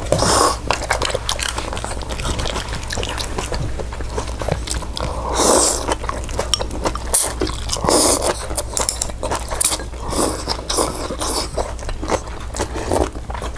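Eating sounds: chewing and biting food, with many short clicks and scrapes of utensils on dishes and a few longer noisy smacking sounds.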